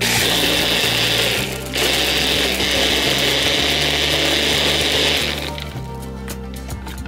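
Personal bullet-style blender running, its blade blending a liquid with seeds and spices: one short run of about a second and a half, a brief break, then a longer run that stops about five and a half seconds in.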